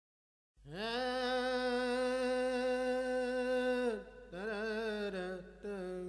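Background music of a wordless voice humming long held notes with vibrato. It comes in about half a second in, holds one long note for about three seconds, slides down through a few shorter notes, and settles on a steady note near the end.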